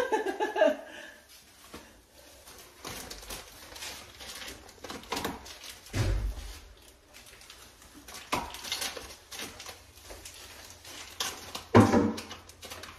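Quiet, scattered rustling and crinkling of blue painter's tape and plastic being peeled off a ceiling light fixture, with a dull thump about six seconds in and a louder brief rustle near the end.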